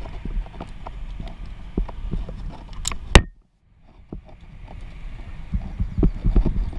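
Irregular low knocks and thumps of a tree climber handling rope and climbing gear. Two sharp clicks come about three seconds in, and then the sound drops out almost completely for under a second before returning.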